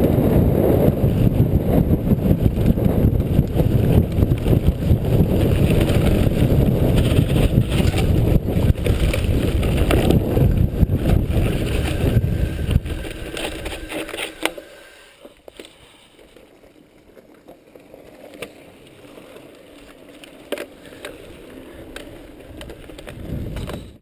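Mountain bike descending a rough dirt firebreak: heavy wind rush on the microphone mixed with the rattle and jolting of tyres and frame over the ground. About fourteen seconds in it drops to a much quieter rolling with a few sharp clicks and knocks.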